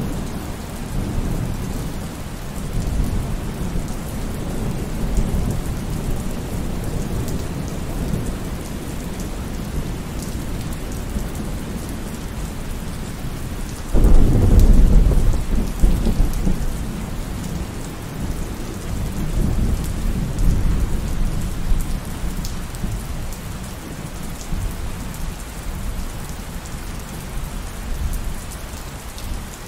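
Steady rain with a continuous low rumble of thunder. About halfway through, a sudden loud thunderclap breaks in and rolls away over several seconds.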